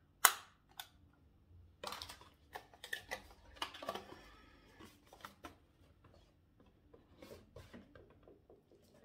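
Cardboard advent-calendar packaging and small cosmetic items being handled on a table: a sharp click near the start, then irregular rustling and scraping as the next small box is taken out and opened.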